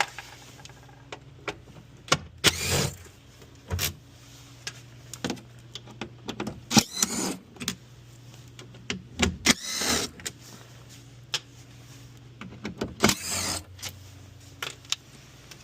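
Cordless drill/driver whirring in several short bursts as it backs out the bolts holding the cover over a hybrid car's battery pack, with light clicks and clatter of the tool and bolts in between.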